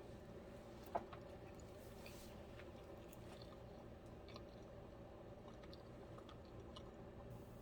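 Near silence: a faint steady low hum with a few soft small clicks, one sharper click about a second in.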